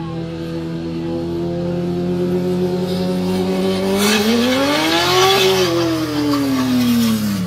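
Sport motorcycle engine running steadily, then its revs climb sharply as the bike goes down in a lowside and fall away again as it slides. A scraping hiss, likely the bike and tyres on the asphalt, comes in as the revs peak.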